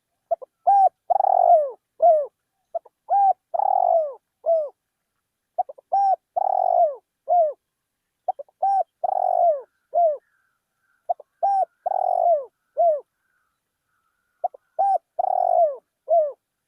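Spotted dove cooing: six repeated phrases about every two and a half to three seconds, each a few short notes, then a longer rolling coo and falling notes.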